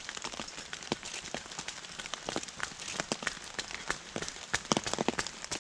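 Rain falling, with drops tapping irregularly and close by over a steady light hiss.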